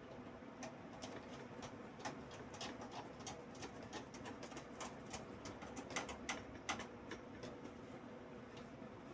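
A run of light, irregular clicks and taps of small metal parts and screws being handled and driven while a power supply is mounted in a PC case, busiest and loudest in the middle stretch.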